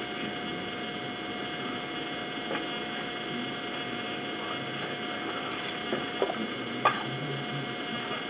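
Steady room hum and hiss, with a few light knocks and clicks about six to seven seconds in as someone sits down at a dining table.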